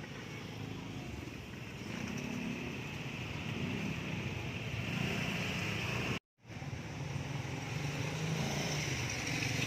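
Street traffic: motor vehicle engines running close by, growing louder over the first several seconds, with a brief cut to silence a little past the middle.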